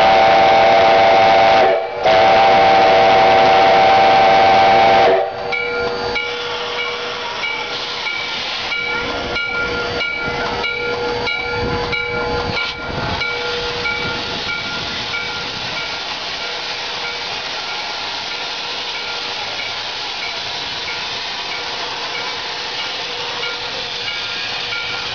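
Chime steam whistle of steam locomotive Ohio Central 1293 blowing two long blasts, the second ending about five seconds in. The engine then starts to move off: a run of exhaust chuffs, then a steady hiss of steam from the open cylinder cocks.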